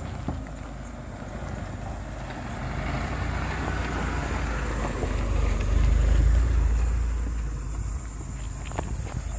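Tata Tiago hatchback driving slowly over a rough gravel dirt track, its engine and tyres on loose stones. The sound grows louder as the car passes close by, loudest about six seconds in, then fades as it drives away.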